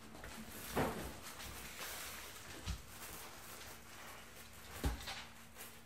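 A Smooth Collie puppy scuffling with a black fabric bag, its paws on a wooden floor: light rustling and three soft thumps spread through, over a faint steady hum.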